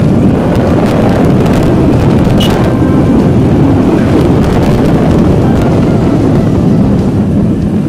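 A motorcycle riding at speed, its sound dominated by loud, steady wind rumble buffeting the microphone, with road and engine noise underneath, as it speeds up to about 65 km/h.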